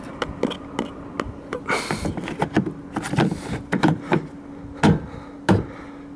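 VW Golf 5's plastic tow-hook cover being pushed back into its bumper opening: a run of plastic clicks, taps and short scrapes. The two loudest knocks come near the end as the cover snaps into place.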